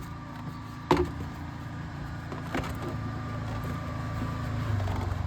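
A steady low engine hum from a running vehicle, growing louder toward the end, with a sharp click about a second in and a lighter one a couple of seconds later as parts are hooked back up on the belt and tensioner.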